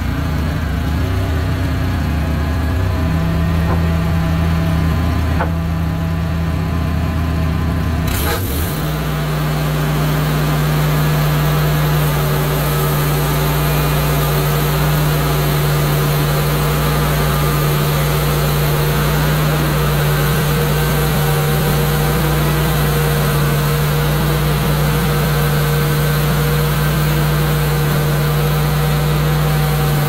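The gasoline engine of a Wood-Mizer LX150 portable bandsaw sawmill running. About eight seconds in, after a click, it picks up to a higher, steady running speed and holds there.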